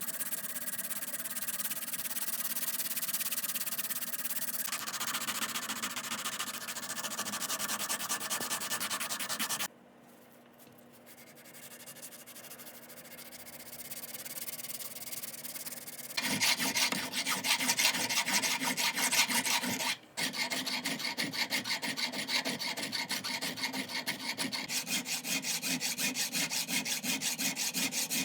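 Abrasive scrubbing on the metal of an old pipe wrench in rapid, repeated strokes, like sanding or filing. It pauses about ten seconds in, comes back gradually and grows louder, then breaks off for a moment near the twenty-second mark before carrying on with an even rhythm.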